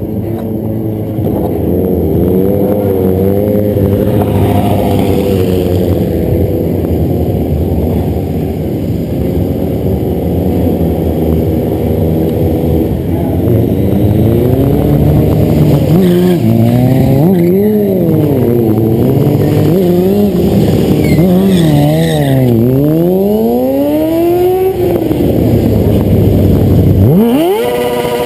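Sport-bike engine running close by, at a steady pitch at first, then revved up and down in repeated swings from about halfway, with deep dips and climbs near the end.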